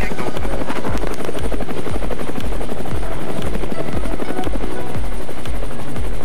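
Helicopter rotor blades beating in a regular low rhythm under a steady high whine, as heard from inside a helicopter cockpit.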